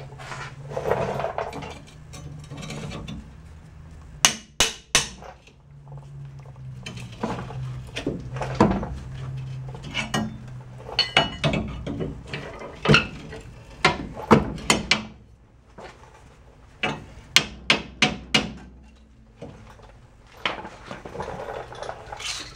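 Hammer striking the steel clips on a truck's leaf spring pack to bend them open, sharp metal-on-metal blows in short bursts of two to five. The clips are being bent out of the way so the broken leaf can come out.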